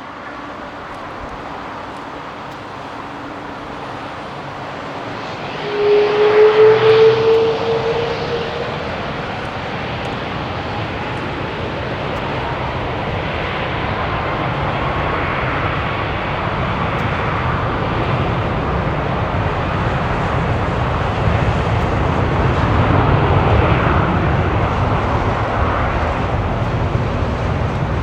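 Jet airliner engines running, the roar growing gradually louder. About six seconds in, a loud whine rises slightly in pitch for a few seconds.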